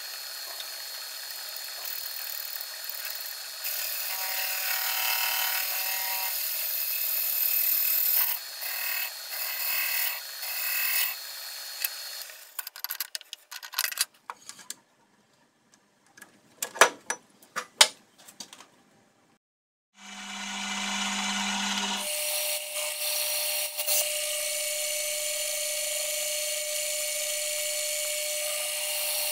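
Sped-up metal machining: a lathe cutting a brake disc hub runs for the first twelve seconds. Then come scattered clicks and a pause, and a vertical mill runs steadily with a steady hum for the last seven seconds.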